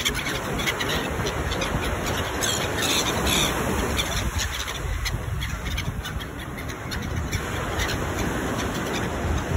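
Gulls calling as they circle over the shore, over the steady wash of waves breaking on a pebble beach, with wind rumbling on the microphone.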